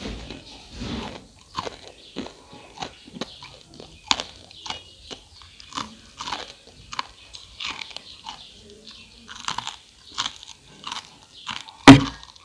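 Close-up crunching and chewing of crispy fried rice cake, a string of short crisp crunches about once or twice a second. One much louder, sharp knock comes near the end.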